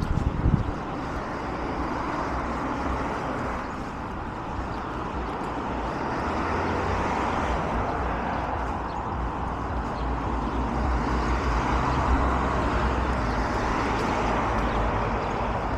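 Steady road traffic noise from cars on the adjacent street, a continuous hum and tyre rush that grows louder and deeper in the second half. A brief low thump about half a second in.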